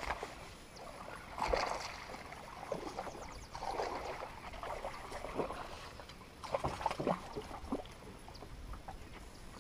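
Splashing of a hooked fish fighting at the water's surface, in several short irregular bursts.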